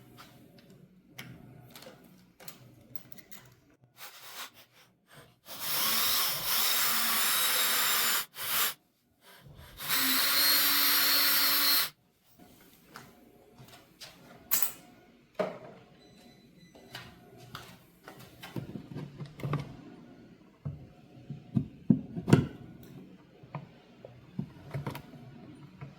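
Power drill running in two bursts of about two to three seconds each, the second with a steady low hum. Scattered light clicks and knocks of hand work follow.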